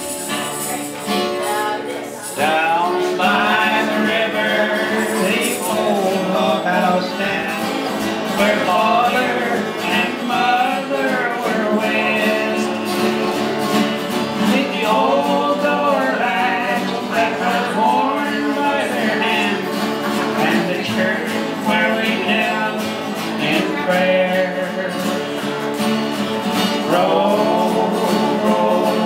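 Country-style song played on strummed acoustic guitar, with a voice singing the melody from about two seconds in.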